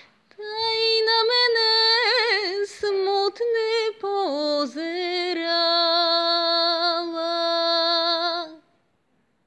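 A woman singing unaccompanied: a long phrase of a folk song with wavering vibrato, settling into a long held note that stops about a second before the end.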